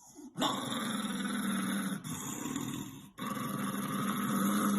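A dog growling: two long, steady low growls, the second starting after a brief pause about three seconds in.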